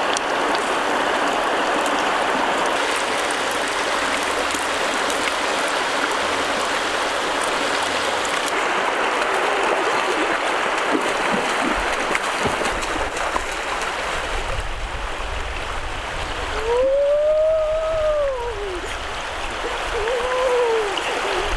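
Shallow, fast river water rushing, with splashing as someone wades through it. The rush thins out about two-thirds of the way in. Then comes a hooting call that rises and falls over about a second and a half, followed by two shorter hoots near the end.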